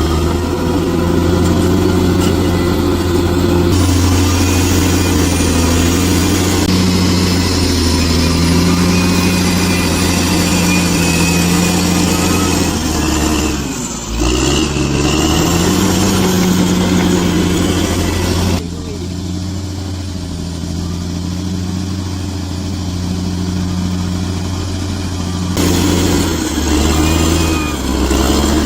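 Bulldozer's diesel engine running steadily under load. There is a brief drop and rise in engine pitch about 14 seconds in, and the level and tone shift abruptly several times, around 4, 19 and 26 seconds in.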